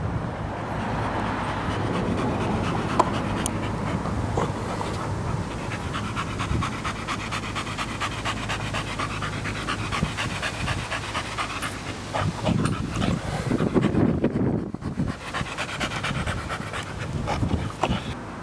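Blue Staffordshire bull terrier panting hard and rhythmically close to the microphone, with a few louder knocks and rustles about two-thirds of the way through.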